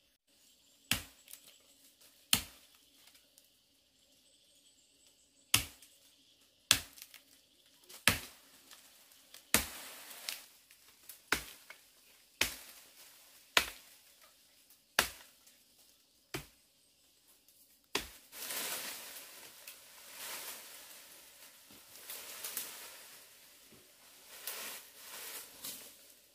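Chopping into wood with a blade: about a dozen sharp strokes, roughly one every second or so, with a pause after the first two. About two-thirds of the way through the chopping stops and gives way to a long crackling rustle of leaves and branches being shaken or pulled through.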